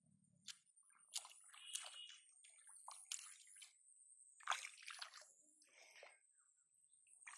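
Hands splashing and squelching in shallow muddy water while pulling at a clump of water weeds. The splashes are small and irregular, and the loudest comes about halfway through.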